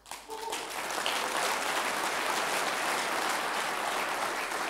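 Audience applauding: clapping swells quickly in the first second and holds steady.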